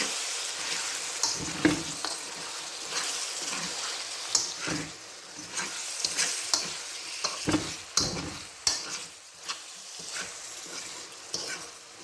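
Ackee and softened onions and peppers sizzling in a hot pan as they are stirred, with a spoon knocking and scraping against the pan every second or so.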